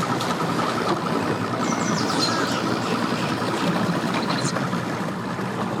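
Mixed engine noise from boats and tow vehicles running and idling together. A fast run of short high beeps fades out about a second in.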